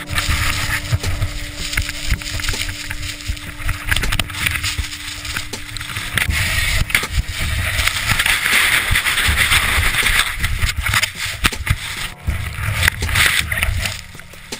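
Sliding avalanche snow rushing and scraping over a helmet camera, with heavy buffeting on the microphone and many sharp crunches and knocks. A steady low hum runs underneath and stops about six seconds in.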